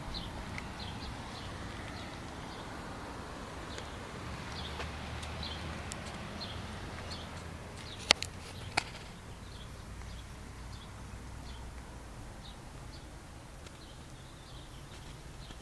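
A small bird chirping faintly and repeatedly, short high chirps about once or twice a second, over a low steady rumble. Two sharp clicks come about eight seconds in.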